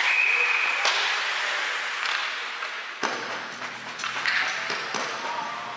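A referee's whistle blows one short steady blast at the start. It is followed by about five sharp knocks of sticks and puck against the ice and boards over the murmur of a hockey rink.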